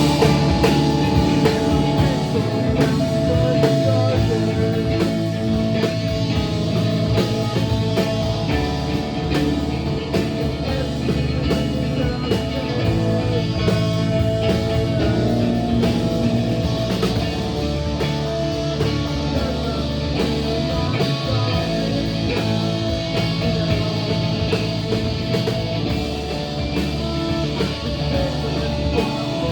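Live rock band playing a song at full volume: guitar, bass and drum kit.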